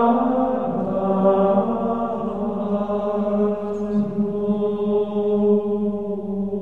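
Background music of sung chant, voices holding long sustained notes that change pitch slowly, gradually fading toward the end.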